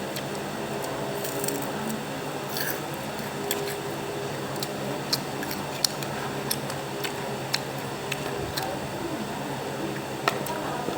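Close-up eating sounds: a person chewing and biting Indonesian fried snacks with rice, with scattered sharp wet mouth clicks over a steady background hum.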